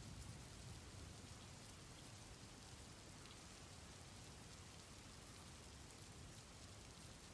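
Near silence with a faint, steady rain ambience in the background.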